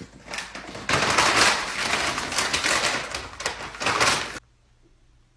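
A rapid, irregular clatter of many small clicks and knocks, which cuts off abruptly about four seconds in.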